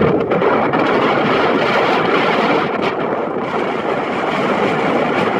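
Steady engine noise mixed with wind on the microphone, with no single distinct event.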